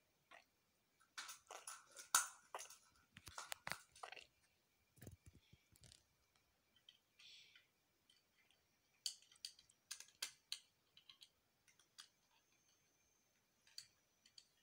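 Faint clicking and rattling of plastic Lego bricks being handled and pressed together, in quick clusters of sharp clicks with pauses between.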